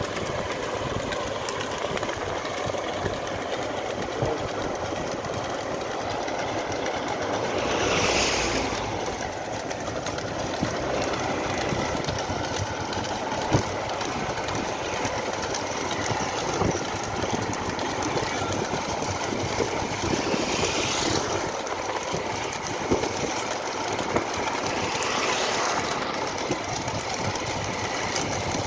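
Steady rumble and rattle of a vehicle moving along a road, with three brief whooshes about eight, twenty-one and twenty-five seconds in.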